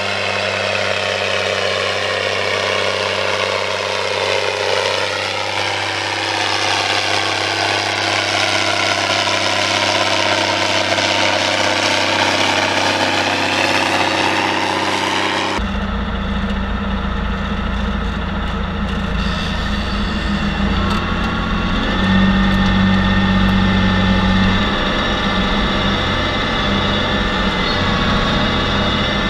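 New Holland G210 tractor engine running steadily under load, pulling and driving a 6 m Maschio Gaspardo rotary harrow through tilled soil. About halfway through, the sound changes abruptly to a closer, deeper rumble.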